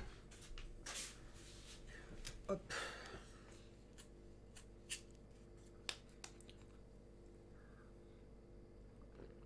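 Faint rustling and a few sharp clicks from a person settling back into a chair and handling a plastic drink bottle, over a steady low hum.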